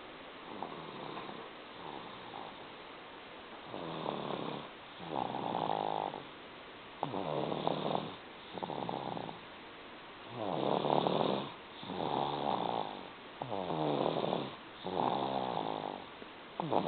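Snoring: one snore about every one and a half seconds, each lasting about a second. The snores are faint at first and louder from about four seconds in.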